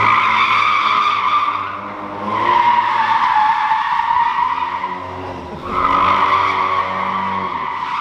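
Tyres squealing in three long screeches as a Ford Mustang EcoBoost does donuts, breaking briefly about two seconds in and again past five seconds. The car's engine revs underneath.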